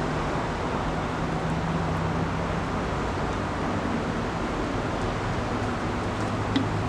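Steady rushing background noise with a faint low hum underneath, and no burp or voice.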